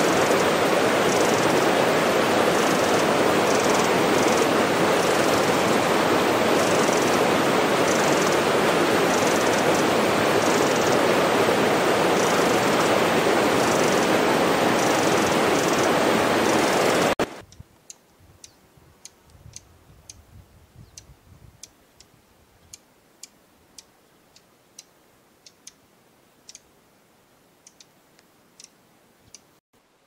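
Steady rush of running water with a Pacific wren's high song faint over it. The water cuts off suddenly about two-thirds of the way through, leaving a faint background with a scatter of sharp ticks.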